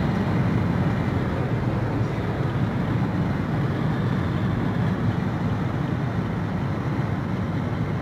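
Steady road, tyre and engine noise inside an Opel Astra's cabin while it cruises along a motorway.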